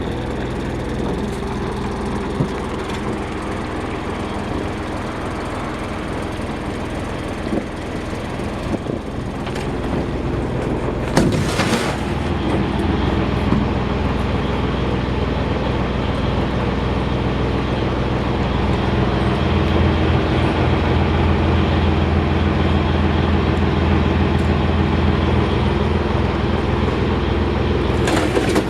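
The boat's Yanmar 6KY-ET 580-horsepower marine diesel running steadily, growing louder from about ten seconds in. There is a brief rush of noise about eleven seconds in.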